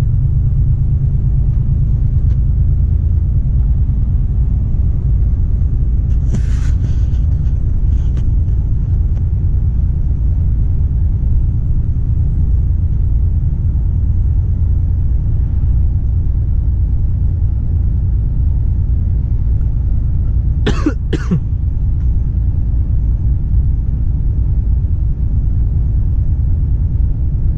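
Steady low engine and road rumble inside the cab of a Volvo FH 460 truck cruising at a constant speed, its 13-litre six-cylinder diesel pulling evenly. About two-thirds of the way through, the driver, who has a cold, coughs twice in quick succession.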